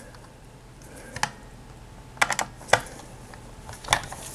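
A handful of light, separate clicks and taps from the robot vacuum's plastic parts being handled during reassembly, with a quick cluster of them about halfway through.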